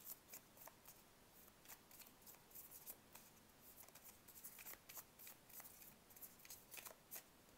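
Faint, irregular soft clicks and snaps of a deck of oracle cards being shuffled by hand, the cards slipping against one another.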